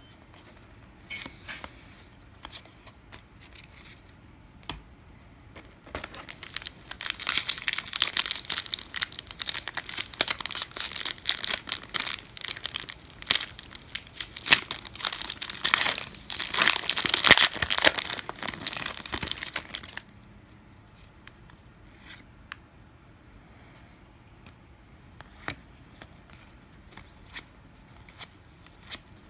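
Trading-card pack wrapper being torn open and crinkled: light scattered ticks, then about fourteen seconds of dense crinkling starting around six seconds in, then light ticks again.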